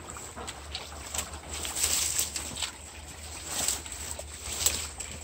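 Steps rustling and crackling through dry leaf litter and twigs, with swells of rustling about two seconds in and again near four seconds. A small brook trickles underneath.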